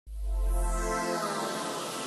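Electronic intro music: a sustained synthesizer chord over a deep bass note that fades out after about a second and a half.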